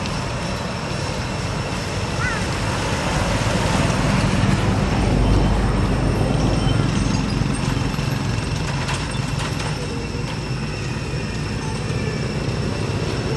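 Steady low rumble of road traffic, swelling around the middle and easing off, with faint steady high tones above it and a brief faint chirp about two seconds in.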